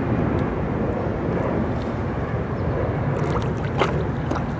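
Water sloshing and splashing at the side of a canoe as a hand-held blue catfish is let go into the river, with a few short, sharp splashes a little after three seconds in, over a steady rushing noise.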